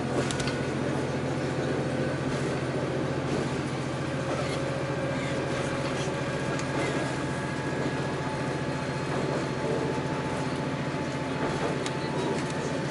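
Cabin sound of a diesel railcar under way: a steady engine drone mixed with wheel-on-rail noise, with a few sharp clicks from the track.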